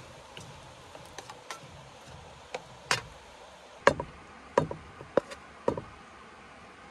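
Wooden spoon stirring fried rice in a frying pan, then scooping it into a wooden bowl: light scrapes and clicks, then about five sharp knocks of the spoon against the pan and bowl in the second half.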